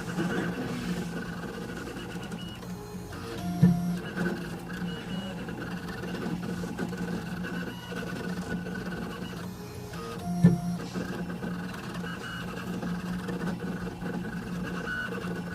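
Small CNC engraving machine's stepper motors whining steadily while it engraves lettering onto a pen, the tones shifting in small steps as the axes change speed. Two sharp clicks, about seven seconds apart, are the loudest sounds.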